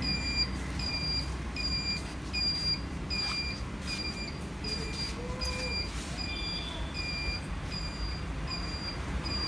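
Turn-indicator buzzer of a 200cc GY6 quad bike beeping steadily, about three short beeps every two seconds, as all four indicators flash in parking-light (hazard) mode.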